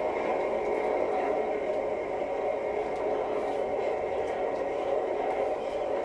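Recording of a skateboard rolling by, played back: a steady rolling rumble of the wheels on pavement.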